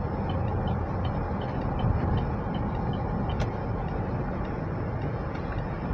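Steady road and engine noise heard inside a car's cabin while it cruises on a highway at about 120 km/h.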